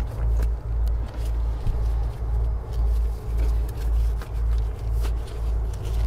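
A low, steady rumble that pulses about twice a second, with a few faint clicks above it.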